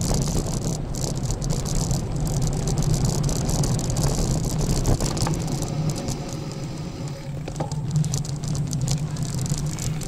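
Bicycle being ridden: a steady rolling hum with many irregular rattling clicks from the bike and its gear.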